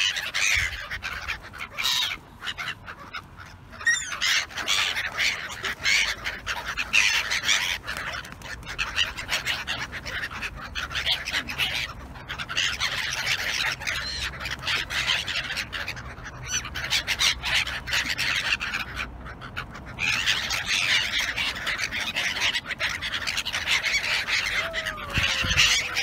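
A flock of black-headed gulls calling over one another in a dense, harsh chorus of short cries, with brief lulls.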